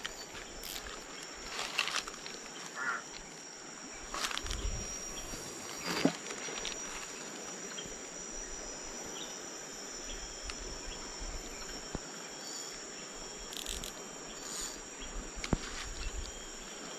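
A steady chorus of insects, a high shrill drone on two pitches, with a few short knocks and clicks scattered through it.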